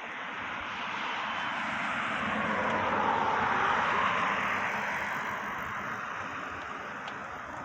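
Ocean wave surf: a rushing noise of breaking water that swells slowly to a peak about halfway through, then washes back and fades.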